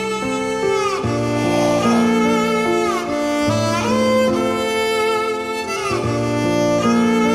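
Background score: a bowed-string melody whose notes slide up and down, over sustained low string notes.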